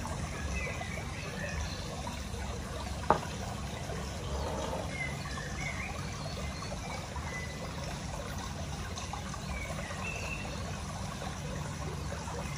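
Water trickling steadily over a low hum, with a few faint high chirps. There is one sharp tap about three seconds in.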